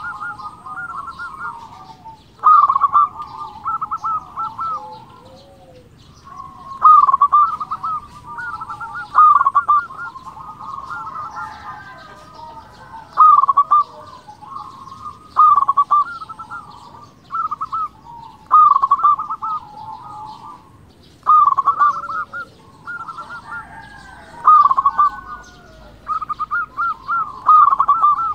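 Zebra dove (perkutut) singing its cooing song: short runs of quick, rolling notes, repeated about a dozen times with gaps of one to three seconds between phrases.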